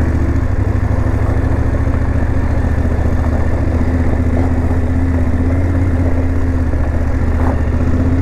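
Large adventure motorcycle's engine running steadily at low revs, a low drone, as the bike rolls slowly over a wet, rutted gravel road.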